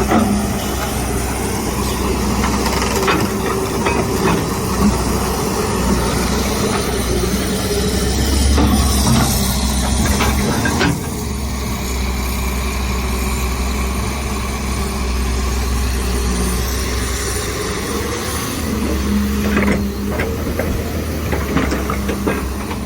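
Excavator diesel engine running steadily as it digs, with a few short knocks from the working machine.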